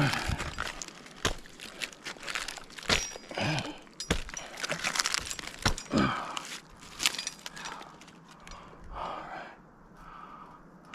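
Irregular cracks, crunches and knocks of a climber's spurs and gear working against a pine trunk's bark, easing to softer scraping in the last few seconds.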